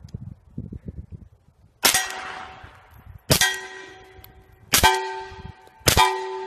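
Four pistol shots about a second and a half apart, each followed by a metallic ringing that dies away over about a second, like rounds striking a steel target.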